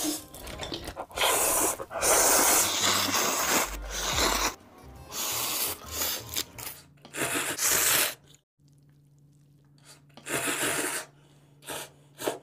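Noodles being slurped into the mouth in loud, noisy pulls of a second or two each, several in a row. After a short lull of a couple of seconds there is one more slurp.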